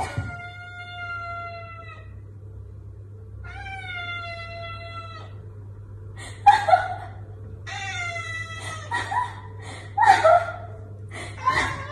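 Domestic cat meowing: two long, drawn-out meows of about two seconds each, then, from about halfway, a quicker run of short meows.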